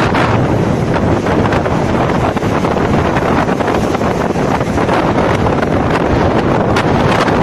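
Strong wind buffeting the microphone over the steady wash of sea waves on the shore.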